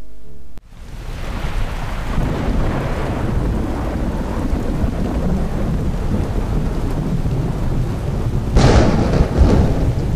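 Thunderstorm: steady rain with a low rumble of thunder fading in after a short music ending. A louder thunder crack comes about eight and a half seconds in.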